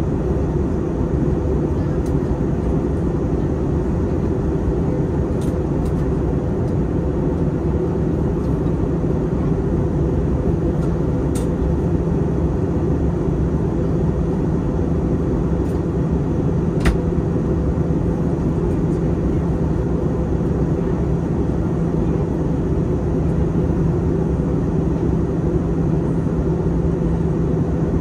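Steady cabin noise inside an Airbus A321 in flight: its twin jet engines and the airflow past the fuselage make a constant low rumble with a steady hum. A single small click sounds about seventeen seconds in.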